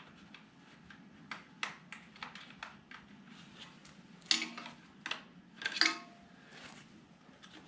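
Screwdriver working a metal hose clamp on a tractor's bottom radiator hose: scattered small clicks and scrapes, with two louder metallic clinks about four and six seconds in.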